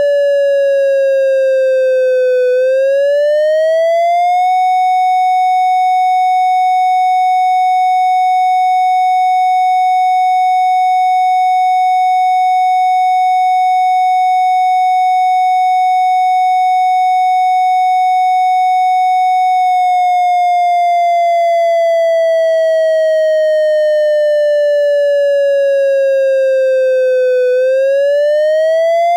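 Synthesized triangle-wave tone imitating the fire signal of an ASC digital electronic siren controller. The pitch slides slowly down, swoops back up, and holds steady for about fifteen seconds, then slides down slowly and swoops back up again near the end.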